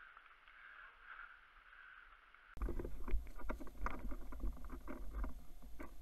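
Quiet outdoor hiss, then, about two and a half seconds in, close handling noise from a body-worn camera: irregular rustling, scraping and knocking of clothing and gear against the microphone over a low rumble.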